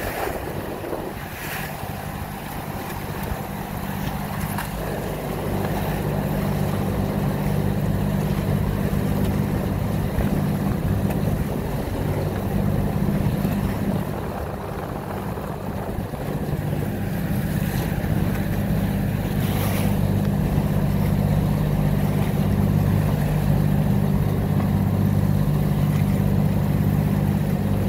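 A small fishing boat's engine running steadily with a low hum while the boat moves through choppy water, with wind and water rushing past. A few brief knocks are heard over it.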